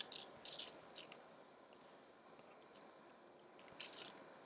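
Mechanical keyboard switches being handled and fitted into a key plate: faint, scattered plastic clicks and rattles, in a cluster in the first second and another near the end.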